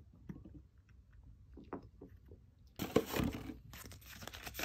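A few light clicks and taps as a spice jar and its wooden lid are handled, then from about three seconds in a louder crinkling rustle as a paper sheet of sticker labels is picked up and handled.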